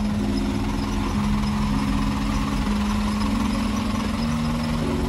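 Soft background music with sustained chords that change about once a second, over a steady low rumble.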